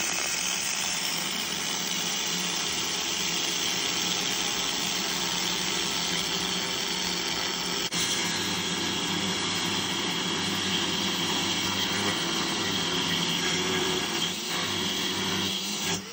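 Handheld angle grinder with a thin cutoff wheel, running steadily as it cuts through the welds holding a rusted steel panel, with a constant high whine over the grinding noise. The sound dips briefly about halfway through.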